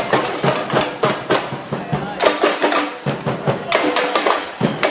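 Samba parade percussion: drums struck a few times a second, with the voices of a crowd around them.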